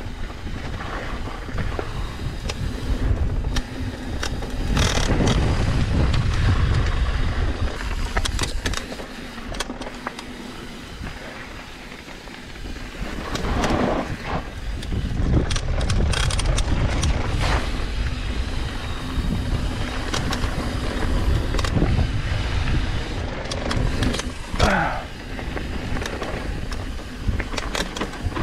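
Trek Session downhill mountain bike ridden fast down a dirt trail: wind rushing over the microphone and knobby tyres rolling and scrubbing on packed dirt, with frequent knocks and rattles from the bike over bumps. It eases off for a few seconds around the middle.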